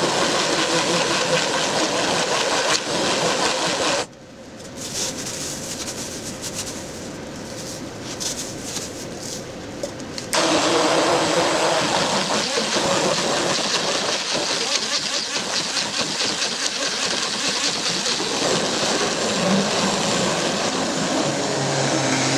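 Hand-held immersion blender running in a stainless steel pot, puréeing blackcurrants with sugar. About four seconds in, the sound drops to a much quieter level for some six seconds, then the blender runs loud again.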